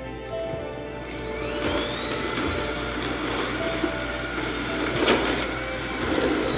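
Handheld immersion blender motor spinning up about a second in to a steady high whine, then running at full speed as it blends champ: potatoes with cream, butter and green onions.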